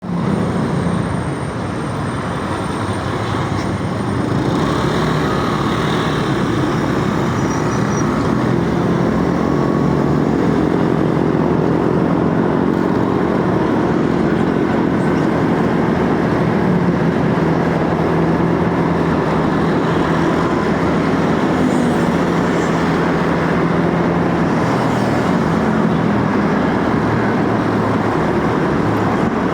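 Motorcycle on the move: the engine running under a heavy rush of wind noise, its pitch and the overall loudness climbing over the first ten seconds as it picks up speed, then holding steady.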